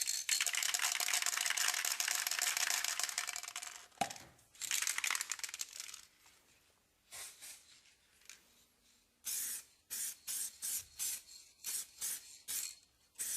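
Paint being sprayed onto a wheel rim during a rim repair: one long hissing pass of about four seconds, a shorter one, then a quick run of about ten short bursts.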